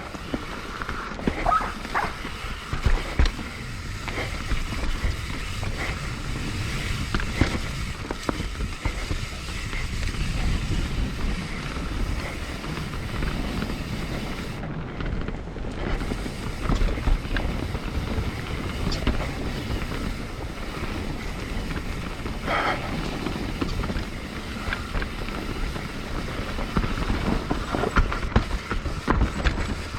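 Mountain bike ridden down a rough, rocky trail: tyres rolling over dirt and rock, with frequent knocks and rattles from the bike over bumps, and wind buffeting the microphone.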